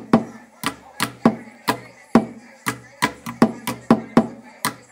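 Percussion music: sharp drum strikes in a quick, uneven rhythm, about two to three a second, each ringing briefly.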